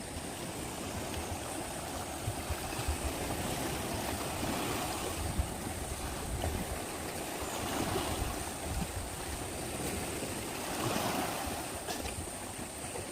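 Seawater sloshing and washing, with surges of louder noise every few seconds.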